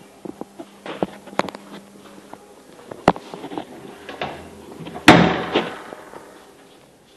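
Scattered knocks and clicks, then a single loud bang about five seconds in that dies away over about a second.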